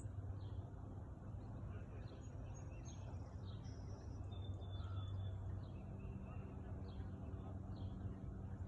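Birds calling outdoors: a series of faint, short, down-slurred chirps, with one longer thin whistle about four seconds in, over a steady low hum.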